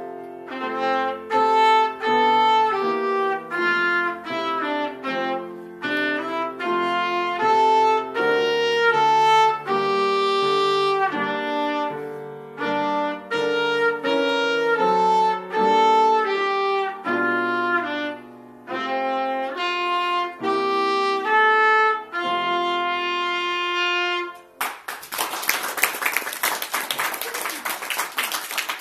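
Trumpet playing a melody over piano accompaniment in separate held and short notes. The piece ends about three-quarters of the way through, and applause follows.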